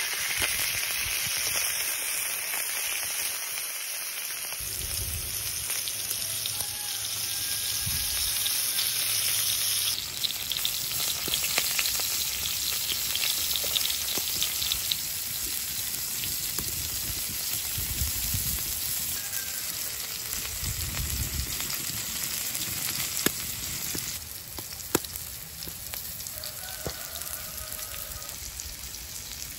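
A whole small octopus sizzling in oil on a hot flat iron griddle: a steady frying hiss with scattered small pops and crackles. The hiss changes abruptly about a third of the way in and again near the end.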